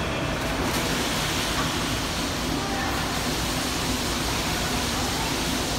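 Water splashing as a small child jumps into a pool and swims, over the steady wash of pool noise, with the splashing getting brighter from about a second in.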